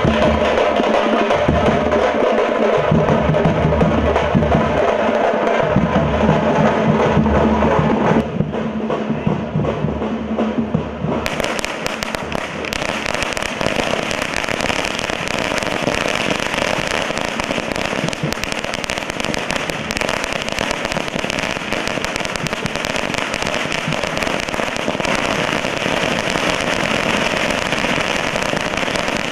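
Several hand-held drums beating a steady, loud rhythm, which stops about eight seconds in. From about eleven seconds a long string of firecrackers goes off as a rapid, continuous crackle of small bangs.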